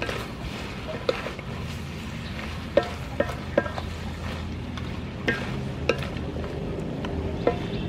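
Pork rib and vegetable stir fry sizzling in a metal wok as it is stirred and tossed with a wooden spatula. The spatula knocks sharply against the pan about seven times, over a steady frying hiss.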